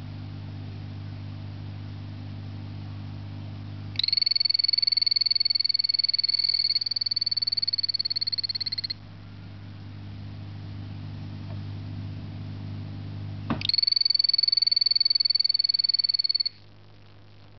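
A small frog in a vivarium giving two long, high, rapidly pulsed trills, the first about five seconds long and the second about three, with a steady low hum beneath them.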